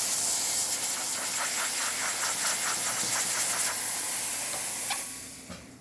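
Espresso machine steam wand venting a strong, steady hiss of steam, then shut off about five seconds in.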